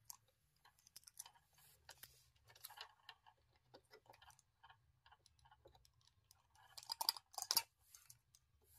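Faint clicks and taps of small plastic toy pieces being handled and fitted into a plastic playset, with a few louder clicks about seven seconds in.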